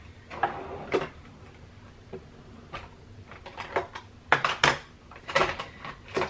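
Makeup containers clicking and knocking as they are picked up and handled: a string of separate short clicks, closer together in the second half.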